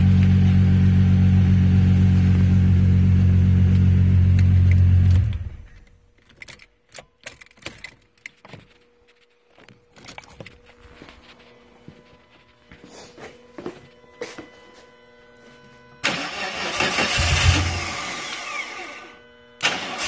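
A 1998 Volkswagen Jetta Mk3's VR6 engine idles steadily, then cuts off about five seconds in. After about ten seconds of faint clicks and handling noise, the engine is started again about sixteen seconds in and runs loudly for a few seconds. This goes with a car that will only start by jumping the starter solenoid.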